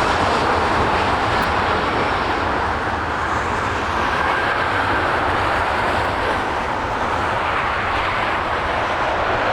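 Jet airliner engine noise: a loud, steady rush with no break.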